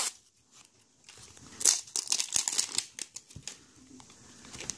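Plastic wrapping on an L.O.L. Surprise toy ball crinkling and tearing as it is peeled open by hand, in irregular crackly bursts starting about a second in.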